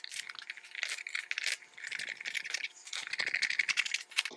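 Rapid clicking and rattling of hand work fitting a plastic mud flap onto a dirt bike, with dense small clicks in quick runs.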